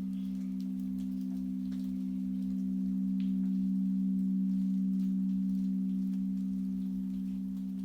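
Quartz crystal singing bowls ringing a steady, sustained drone of two close low tones, swelling slightly in the middle.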